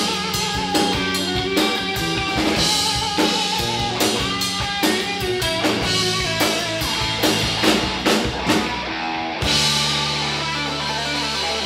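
Live rock band playing, with a drum kit beating under electric guitar and bass. About nine and a half seconds in the drums stop and a held chord rings on.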